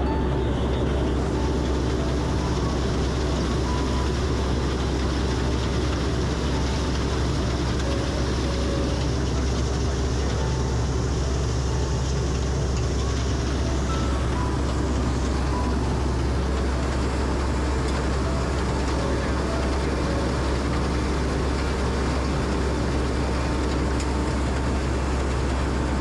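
Rice combine harvester running steadily as it cuts ripe paddy, a constant deep engine drone with even mechanical noise over it.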